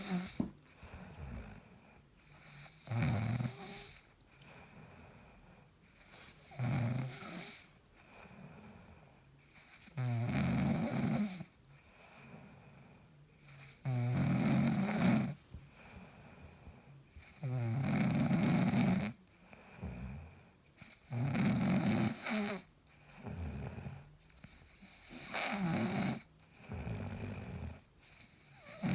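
A man snoring in his sleep: a loud, rasping snore about every three and a half seconds, with quieter breathing between.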